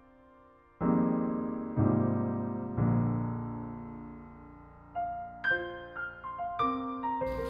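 Background piano music: slow, soft chords struck about a second apart, ringing out, then a gentle run of higher notes. A hiss like rain comes in near the end.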